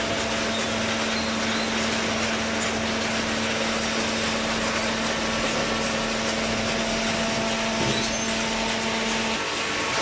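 Steady machinery running noise: a broad even hiss with a constant hum that drops out near the end.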